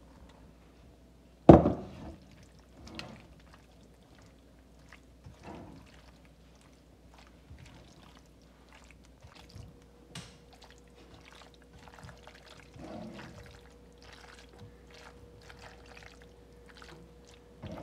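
Boiled pasta tipped from a glass bowl into a nonstick frying pan, with one loud knock about a second and a half in. Then a silicone spatula stirring the pasta through chicken and vegetables in the pan, with many soft short clicks and scrapes.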